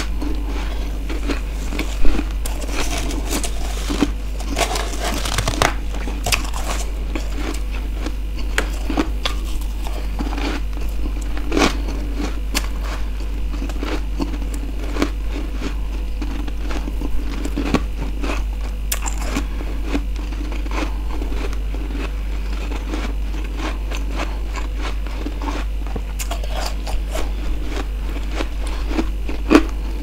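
Freezer frost being bitten and chewed in repeated crisp crunches, mixed with fingers scraping and gathering the powdery frost on a plate. The sharpest crunch comes about two seconds in; a steady low hum runs underneath.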